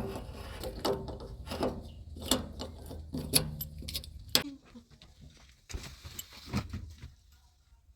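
Irregular metallic clanks and rattles over a low engine rumble. The rumble drops away about four and a half seconds in, leaving a few scattered knocks.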